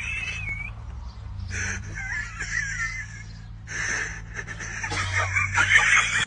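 Birds chirping and squawking in three bursts, over a steady low hum that cuts off suddenly at the end.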